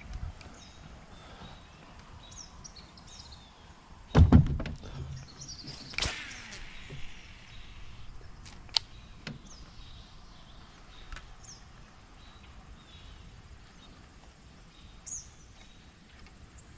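Birds chirping faintly over outdoor background noise, with a heavy low thump about four seconds in, a short rushing noise about two seconds later, and a few sharp clicks.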